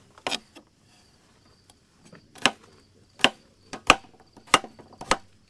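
Knife chopping vegetables on a small cutting board. There is a single chop, a pause of about two seconds, then a steady run of five chops about two-thirds of a second apart.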